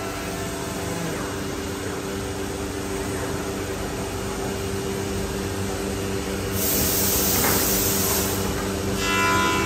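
CNC router with an HSD spindle and C-axis aggregate head running and routing a solid-wood door part, a steady machine hum with cutting noise. A loud, high hiss comes in for about two seconds near the end.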